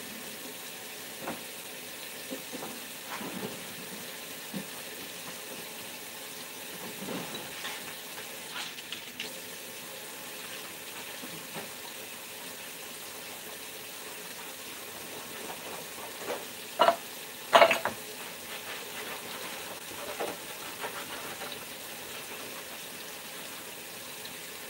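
Kitchen tap running steadily into a sink while a skillet and dishes are washed, with occasional clanks and knocks of cookware, the loudest a pair of clatters a little past the middle.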